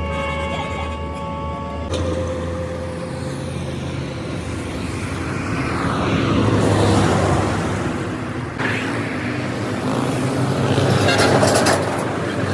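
Heavy road vehicles running, a steady low engine hum with traffic noise swelling and fading. A steady pitched tone stops about two seconds in.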